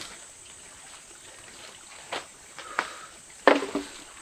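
Steady high insect drone over a faint hiss, with a few sharp knocks about halfway through and a louder quick run of knocks near the end.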